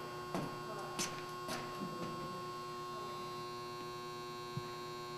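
Steady electrical hum with a few light clicks or knocks, most of them in the first two seconds and one more near the end.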